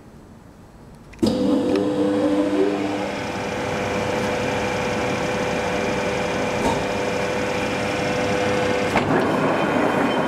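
A large Meuser centre lathe (1260 mm swing) starting up about a second in: its drive and gearing run up with a short rising whine, then run steadily with the chuck turning at about 40 RPM. One steady tone in the running sound stops about nine seconds in.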